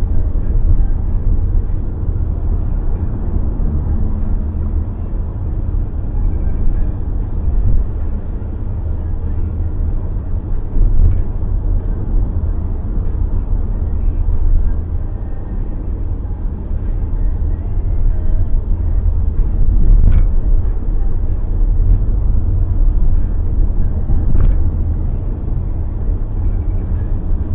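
Steady low rumble of a car driving, road and engine noise heard from inside the cabin, with two faint ticks in the later part.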